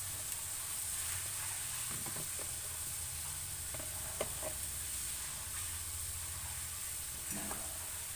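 Squid, chicken and vegetables sizzling steadily in an aluminium wok with a little hot water in the pan, with a few faint ticks.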